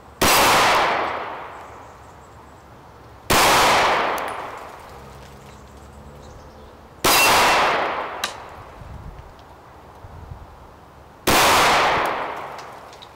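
Four single shots from a 1906 American Eagle commercial Luger pistol in 9mm Luger, spaced about three to four seconds apart. Each is a sharp crack followed by a long fading echo. The pistol cycles every round.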